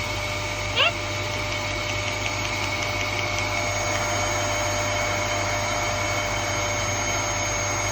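Vacuum cleaner running steadily with a constant whine. A single short, rising squeak comes about a second in.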